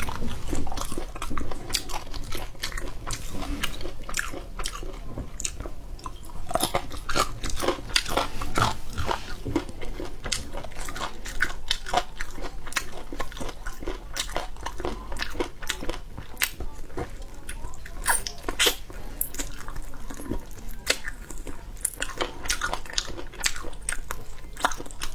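A person biting and chewing food close to the microphone, with many short crunches and wet clicks throughout.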